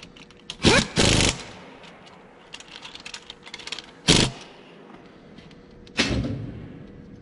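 Cordless impact wrench hammering in short bursts while running down bolts on a diesel engine's fuel filter housing, the longest burst about a second in.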